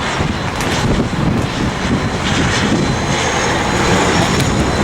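De Havilland Canada Dash 8 twin-turboprop airliner passing close on its landing approach, its engines running with a loud, steady noise.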